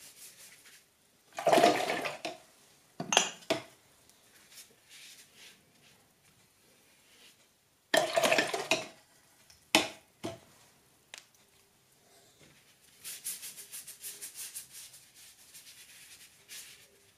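A watercolour brush knocking and swishing in glass water jars and ceramic paint pots: separate clinks and splashy swirls, the loudest about two seconds in and again about eight seconds in. Near the end comes a few seconds of quick, rapid scratching as the brush works across the paper.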